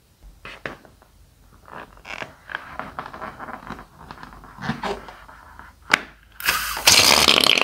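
Rubber balloon filled with slime being handled, with small scrapes and clicks, then a sharp scissor snip cutting its tip about six seconds in. A loud, continuous squirting noise follows as thick slime is squeezed out through the cut.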